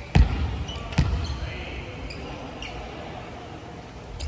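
A volleyball being struck during a rally in a gymnasium: two sharp smacks in the first second, a fainter one just after, and another near the end, each ringing briefly in the hall.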